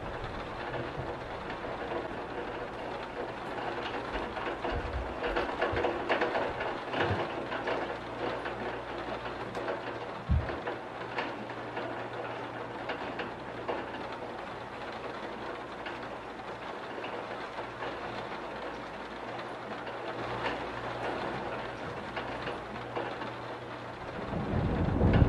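Steady rain with a dense patter of drops, and a brief low thump about ten seconds in. A low rumble of thunder swells near the end.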